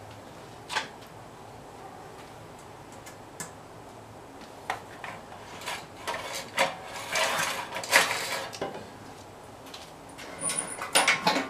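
Recoil starter of a 5 hp Briggs & Stratton engine pulled several times, each pull a short whirring rasp of rope and pawls. The engine turns over without catching.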